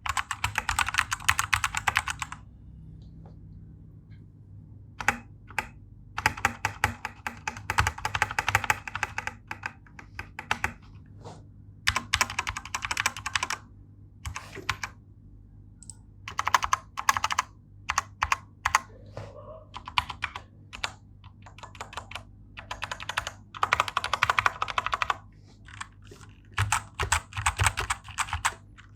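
Typing on a stock Vortex VX5 Pro mechanical keyboard with factory-lubed Outemu Brown tactile switches: fast runs of keystrokes broken by pauses of a second or two and scattered single key presses.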